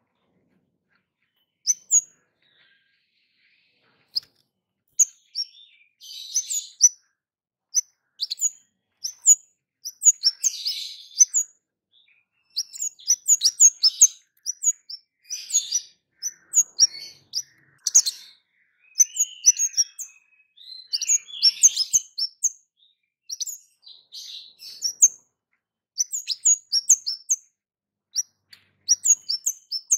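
Orange-headed thrush (kemade) giving loud, sharp, high chip calls ('cit') in quick clusters, mixed with short twittering phrases. A few chips come about two seconds in, and the bursts come thickly from about five seconds on.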